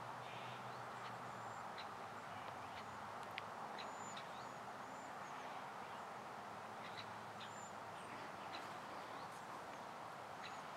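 Small birds chirping and calling with short, high notes scattered throughout, over a faint steady hiss of outdoor background noise.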